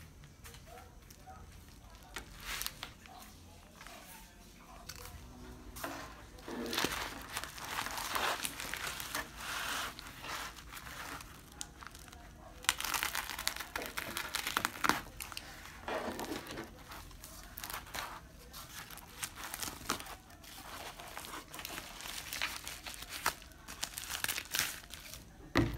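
A padded bubble mailer crinkling and rustling as it is handled, slit along its edge with a box cutter and pulled open. The rustling comes in irregular bursts with sharp clicks and starts a few seconds in.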